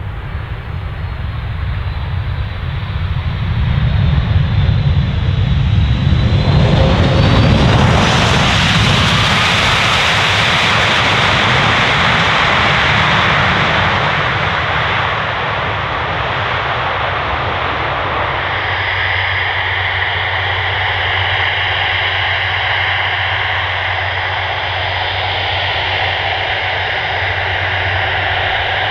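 Jet engines of a Boeing 767-300ER landing, almost certainly its Rolls-Royce RB211-524H turbofans. The engines make a steady roar that swells over the first several seconds, is loudest through the middle of the landing roll, then eases. About two-thirds of the way in, it changes to the steadier whine of the turbofans at low power while taxiing, with several level tones.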